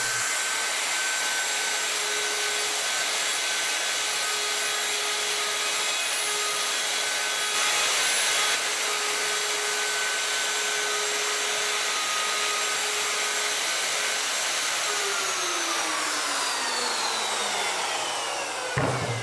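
Bosch router running at full speed, its bit cutting into wood with a steady high whine over a hiss. About 15 seconds in the motor is switched off and the whine falls steadily in pitch as it spins down.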